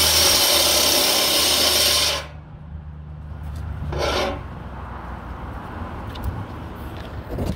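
Angle grinder with a Star Cup wheel grinding paint off a steel plate: a loud, steady rasping over the motor's hum. A little over two seconds in, the grinding stops abruptly and the motor winds down. About four seconds in there is a brief scrape as the grinder is set down with its wheel on the plate.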